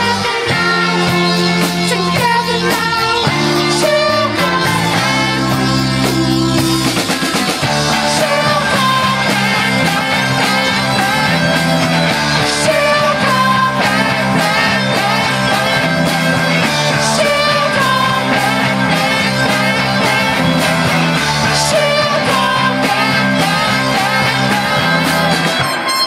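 Live rock band playing amplified: electric guitars, keyboard and drums.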